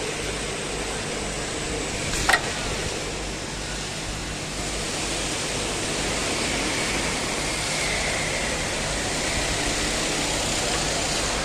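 Steady hum and hiss of workshop machinery running, growing fuller about halfway through, with one sharp click about two seconds in.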